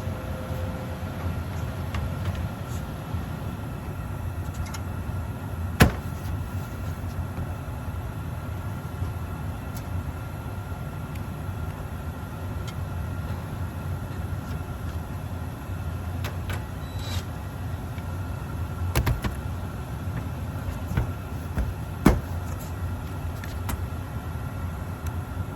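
Gas/electric package HVAC unit running: a steady low drone with a faint steady whine above it. A few sharp knocks or clicks stand out, the loudest about 6 s and 22 s in.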